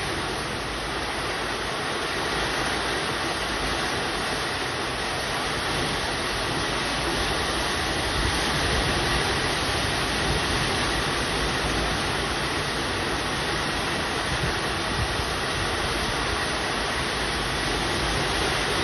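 Strong wind blowing steadily: a dense rushing noise with gusty buffeting in the low end.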